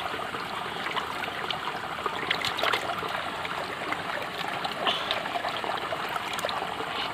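Water sloshing and splashing in a plastic bucket as hands handle fish in it, many small splashes over a steady trickling water sound.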